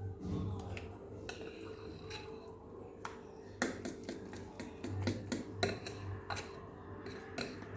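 A kitchen utensil clicking and knocking against a mixing bowl while cake batter is being mixed: irregular sharp clicks, a few louder knocks about halfway through, over a steady low hum.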